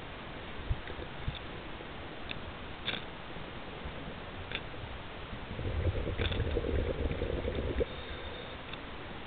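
Scuba diver's exhaled bubbles rumbling out of the regulator, heard underwater through the camera housing, one exhale of about two seconds starting just past halfway, over a low steady underwater murmur with a few faint clicks.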